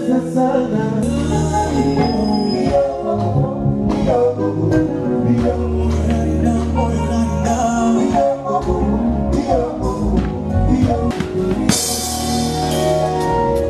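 Music: a song with singing over drums and a steady bass line, with a bright cymbal wash coming in near the end.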